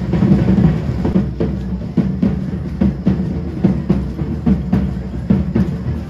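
Drums beating a steady, brisk rhythm of about two strokes a second, the music that the matachines dance to.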